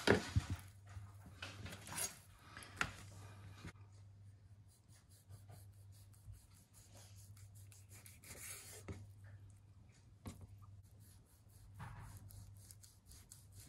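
Kitchen knife sawing through raw beef tongue on a cutting board: a few sharp knocks of the blade in the first few seconds, then a long run of quick, even slicing strokes.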